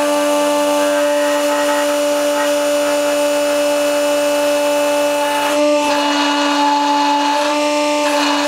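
Hydraulic shop press's pump running with a steady whine while a locomotive idler wheel is pressed onto its axle. About five and a half seconds in, and again near the end, a rushing noise joins in and the whine dips slightly as the control valve is worked and the press takes load.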